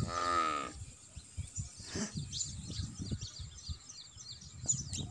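A short, wavering bleat near the start, then scattered bird chirps over a low rumble.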